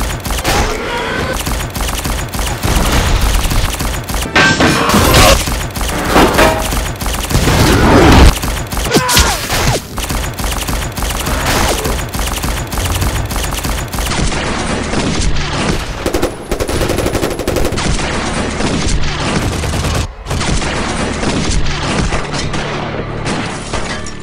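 Rapid automatic gunfire, shot after shot in long volleys, loudest between about five and eight seconds in.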